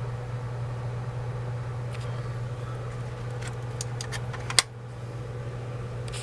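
Steady low background hum, with several light clicks a little past halfway through and one sharper click about four and a half seconds in.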